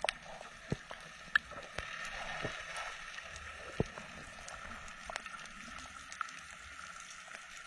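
Water ambience: a steady hiss with scattered sharp clicks, the loudest about a second and a half in and again near four seconds.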